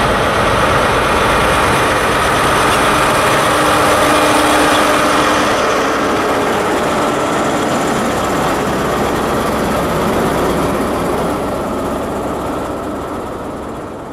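First Great Western High Speed Train rolling past: Mark 3 coaches, then the rear Class 43 power car with its diesel engine running. The sound fades over the last few seconds as the train draws away.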